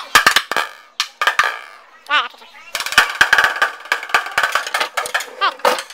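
Drumsticks beating a bucket in bucket-drum style: a few separate strikes, then a fast dense run of hits from just under three seconds in. A short wavering, warbling sound comes about two seconds in.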